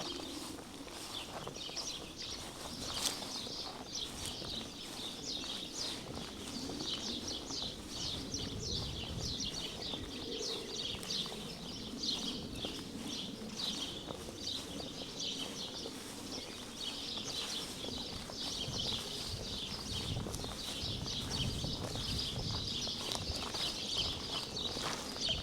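Small songbirds chirping and singing in a dense, continuous chorus of quick high notes, with the walker's footsteps on the path underneath.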